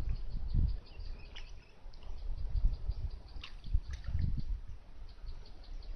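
A fast, even series of high chirps, about four a second, from a small animal, with irregular low rumbling thuds on the microphone.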